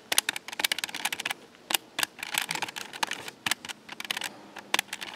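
Keys of a DSL 8-digit electronic desktop calculator being pressed by hand: a fast, uneven run of clicks with short pauses between groups.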